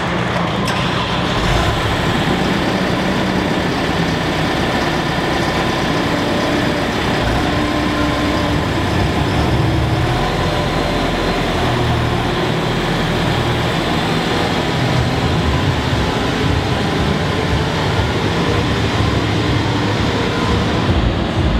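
Diesel engine of heavy Claas farm machinery running, a steady low rumble under a dense, even rushing noise.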